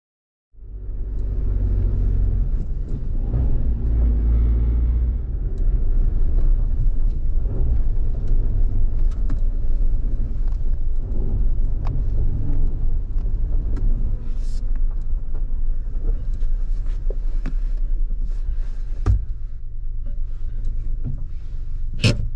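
Suzuki Jimny JB64 driving along a rough forest road: a steady low rumble of the running vehicle and tyres, scattered with small clicks and knocks. It starts suddenly about half a second in.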